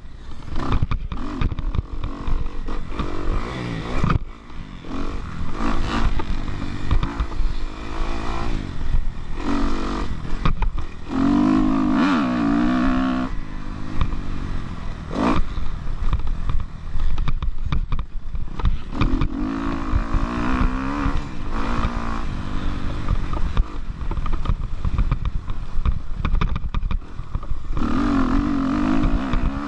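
Kawasaki KX250F four-stroke motocross bike engine heard from on the bike, revving up and falling off again and again as the rider works the throttle around the track. Wind noise and rattling run underneath.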